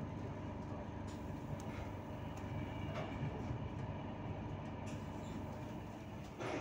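Passenger train running along the track, heard from inside the carriage: a steady low rumble of wheels on rails, with several faint clicks and a louder knock near the end.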